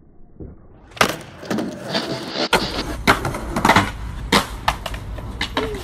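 Skateboard clacking: a burst of sharp pops and board-on-ground knocks starting about a second in, with the wheels rumbling over pavement from a little later on.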